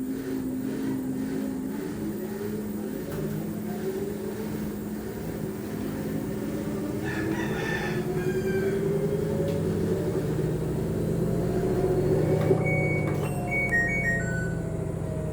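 LG washing machine's drum motor spinning up in the service-mode unbalance test, a motor whine climbing steadily in pitch over several seconds, then easing slightly lower near the end. A few short high tones sound near the end.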